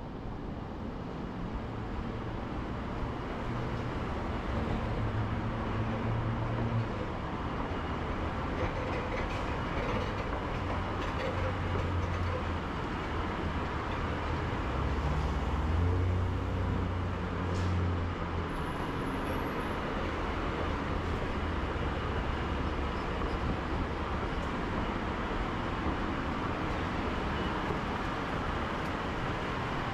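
Escalator running under a steady wash of road-traffic and station noise, with a continuous low hum. A deeper rumble swells about five seconds in and again from about eleven to eighteen seconds.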